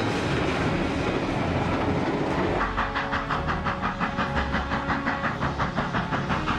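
Steam locomotive running: a steady rush of steam noise, then, a little over two seconds in, a fast even beat of about five pulses a second sets in over a steady tone.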